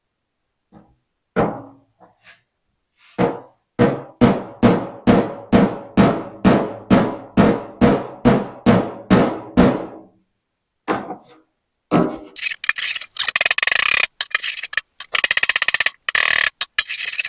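Hammer blows panel beating an aluminium door skin: a few separate knocks, then a steady run of ringing strikes at about three a second. Near the end a dense scraping, rasping noise takes over.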